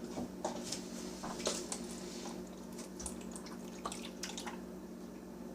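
Scattered small clicks and taps, irregular and faint, over a steady low hum.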